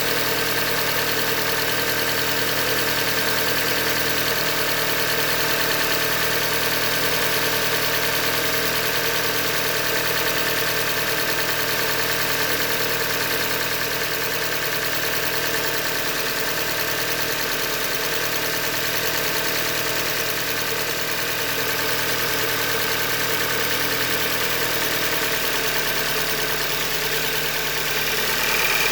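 2015 Hyundai Elantra Limited's four-cylinder engine running steadily with an engine knock, which the owner puts down to a failed short block.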